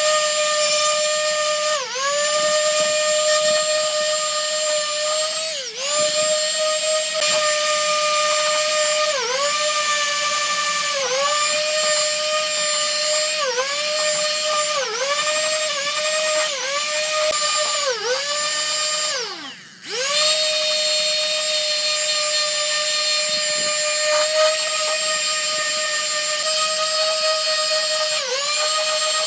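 High-speed electric power tool whining, its pitch dipping briefly again and again and recovering. About 19 seconds in it is switched off, winds down and starts up again about a second later.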